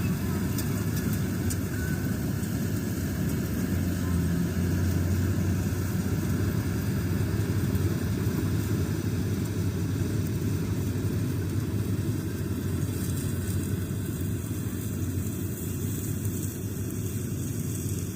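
Malkit 997 combine harvester's engine running steadily, a continuous low drone that gets slightly fainter near the end.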